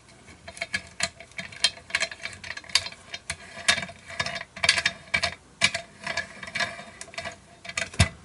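Irregular clicks, taps and scrapes of small metal and plastic parts being handled as a camera-mount clamp is fitted and adjusted on a Panavise knuckle.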